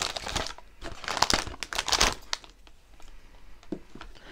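Clear plastic bag of a model rocket kit crinkling as it is handled and opened, in quick crackly bursts for about the first two and a half seconds, then quieter with a faint knock near the end.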